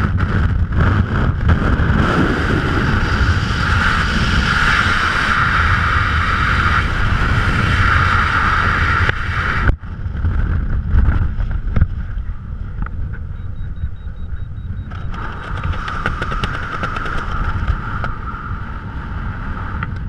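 Wind rushing loudly over the jumper's helmet-camera microphone during skydiving freefall. About ten seconds in it drops away abruptly to a softer wind rush under the open parachute canopy, which builds again near the end.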